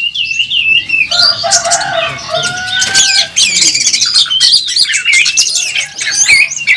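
Oriental magpie-robin (kacer) singing loudly in its aggressive fighting song: a dense, unbroken stream of rapid chirps and trills, with a few long steady whistles in the first couple of seconds.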